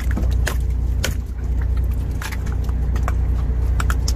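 Boat engine running with a steady low hum, with a few short clicks and knocks over it.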